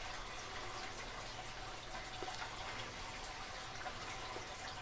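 Quiet room tone: a steady faint hiss with a thin hum, and a couple of soft ticks.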